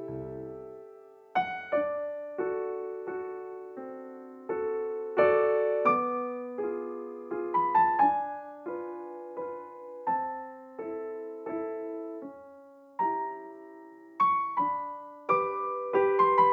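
Gentle background piano music: a slow melody of single struck notes over soft chords, each note ringing and fading away.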